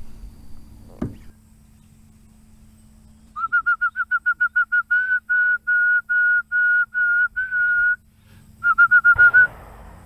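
A person whistling to call cattle: a fast run of short chirped notes, then a string of longer held notes about two a second, then another quick run near the end. A single sharp knock about a second in.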